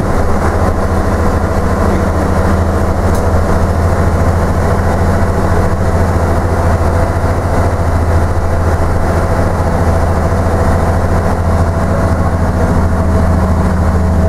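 Leyland Titan PD2 double-decker bus's six-cylinder diesel engine running steadily as the bus drives along, heard from inside the upper deck with a deep, even drone.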